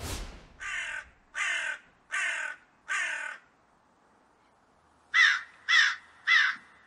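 Crows cawing: four caws about three-quarters of a second apart, a pause of nearly two seconds, then three louder caws in quick succession. A short whoosh right at the start.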